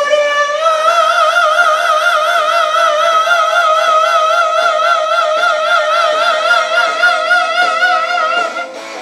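A singer holds one long high sung note with a wide, even vibrato, rising slightly about half a second in and held for about eight seconds before it stops near the end. Faint backing music plays underneath.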